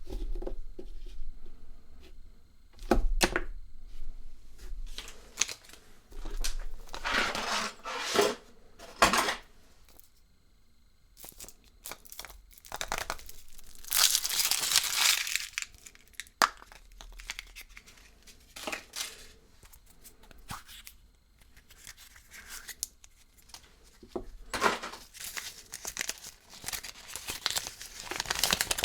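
Kinder Surprise egg wrapping being torn and crinkled by hand. It comes in bursts of rustling, with a few sharp clicks and knocks between them.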